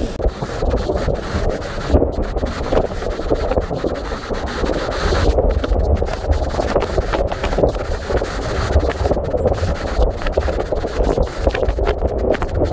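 Hurricane-force wind and driving rain, the wind buffeting the microphone in a steady loud, low rumble.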